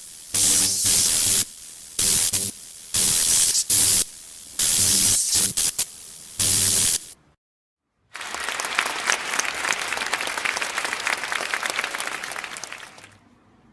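Glitch-style static sound effect: loud bursts of hiss cutting abruptly on and off about nine times, with a low buzz between them. Then, after a moment of silence, about five seconds of crackling static full of small ticks that fades away.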